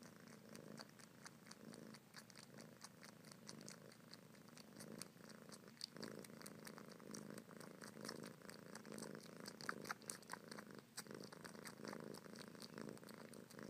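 Kitten purring steadily and faintly while sucking on its own paw, with many small wet clicks from the suckling.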